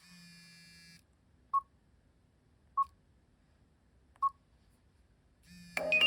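Nokia 5530 message alert tones: three short electronic beeps at one pitch, a little over a second apart, then a louder melodic chiming tone starts near the end.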